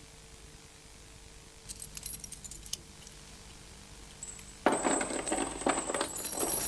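Hanging metal chains shaken by hand, links clinking together. A few light clinks come about two seconds in, then from near five seconds a loud, continuous jangling clatter.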